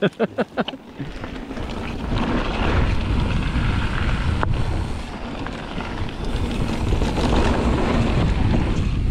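Wind rushing over the microphone and mountain-bike tyres rolling on a loose gravel trail during a fast descent. The noise builds over the first two seconds, then holds steady.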